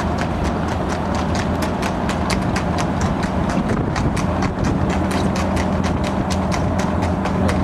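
Hooves of a trotting harness horse striking wet tarmac in a quick, even rhythm, with a steady low vehicle hum beneath.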